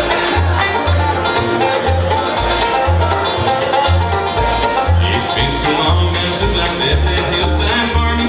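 Bluegrass band playing, with banjo and guitar picking over bass notes falling about twice a second. A thin, high held note enters about five seconds in.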